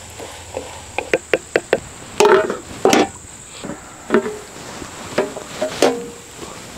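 A metal spatula knocking and scraping against the pan as it stirs frying okra. A quick run of light taps comes first, then a few louder clanks, some with a short ring, over a steady high-pitched whine.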